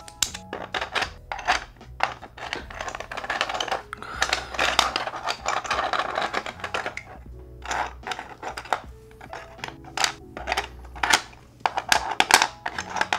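Hard plastic 3D-printed puzzle pieces clicking and clattering as they are picked up, shuffled and fitted into a plastic tray, with light background music underneath.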